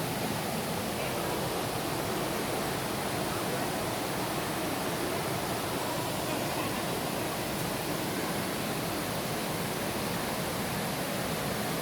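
Waterfall: water rushing over rocks in a steady, unbroken rush.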